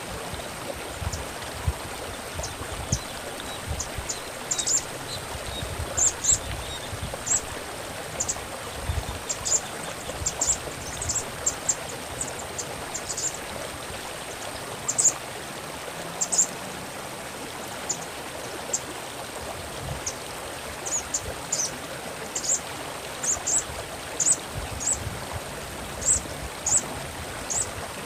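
Running stream water with a sunbird (sogok ontong) calling over it in short, sharp, high chirps, singly and in quick clusters.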